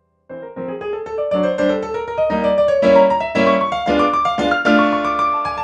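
Roland F-140R digital piano playing its SuperNatural acoustic piano tone: a lively passage of chords and melody notes that comes in suddenly after a moment's silence.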